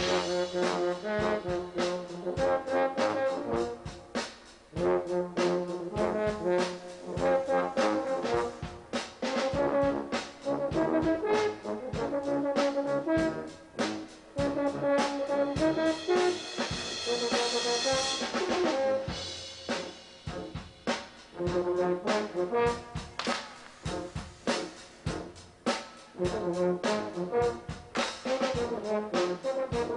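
Brass band playing a rhythmic piece: full brass chords over a steady beat, with short pauses between phrases and a brighter, hissing wash for a few seconds past the middle.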